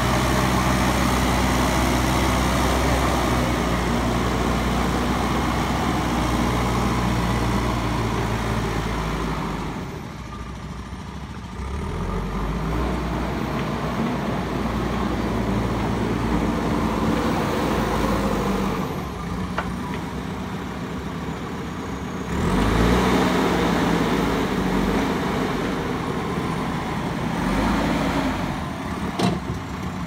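JCB backhoe loader's diesel engine running hard under load for the first ten seconds, then dropping to a lower, steadier run. It revs up again a little past twenty seconds in, and there is one sharp knock near the end.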